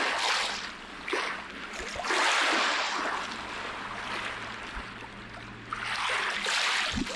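Small waves washing onto the shore, a hiss that swells and fades every few seconds, loudest twice.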